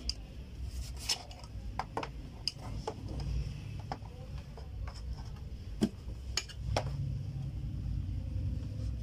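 Irregular light clicks and knocks of the parts of a digital height-and-weight scale being handled as its height rod is fitted into the base, over a low steady rumble.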